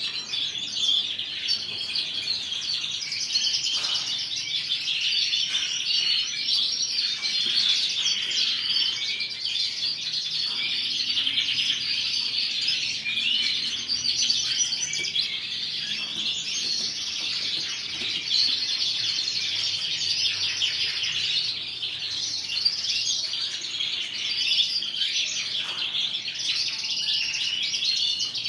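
A room full of canaries singing and chirping at once, a dense continuous chorus of quick high trills and tweets with no pause.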